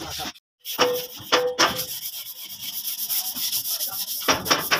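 Cloth rag rubbed back and forth over a truck's steel trim strip coated with white polishing compound, in repeated scrubbing strokes.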